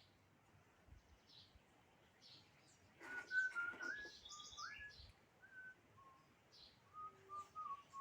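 Small birds chirping with short high calls, over a run of clear, steady whistled notes at a lower pitch that step up and down from about three seconds in; a brief clatter near the three-second mark.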